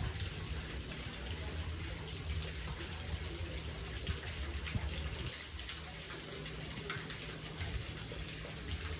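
Steady rushing of running water, with a low rumble underneath.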